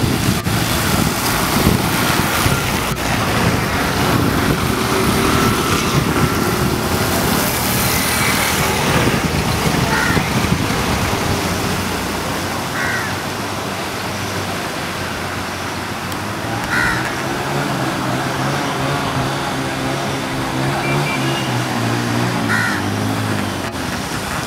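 Motor vehicles driving through shallow floodwater on a road, engines running and tyres splashing through the water. In the second half a small engine hums steadily, and a few short bird calls sound four times or so.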